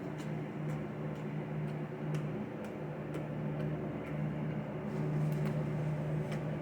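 Eating sounds: irregular sharp chewing clicks and mouth smacks over a steady low hum.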